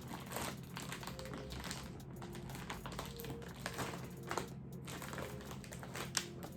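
A thin plastic bag crinkling with many small irregular clicks as a battery-powered mini heat sealer is pressed and slid along its opening to seal it, over a low steady hum.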